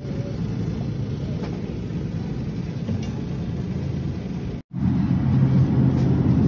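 Steady low rumble and hum of supermarket background noise. It cuts out for an instant about four and a half seconds in and comes back a little louder.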